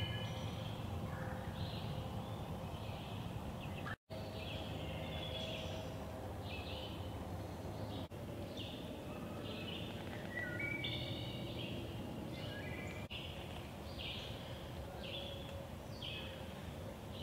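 Woodland ambience: several birds singing short, repeated chirping phrases over a steady low background noise, with a brief dropout about four seconds in.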